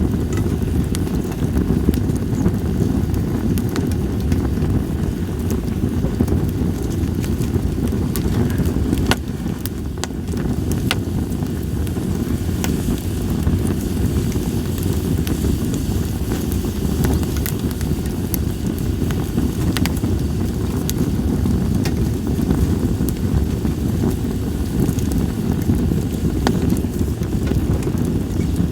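Split sawtooth oak (kunugi) firewood burning in a fire stand, with scattered sharp crackles and pops over a steady low rumble.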